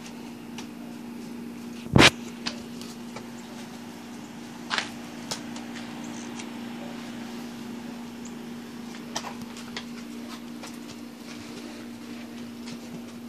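A steady low hum, with one loud sharp click about two seconds in and a few fainter clicks later.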